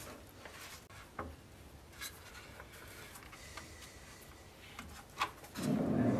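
Light workbench handling of a wooden scabbard core and leather: faint rubbing and a few light knocks. A low, steady rumble sets in near the end and is the loudest sound.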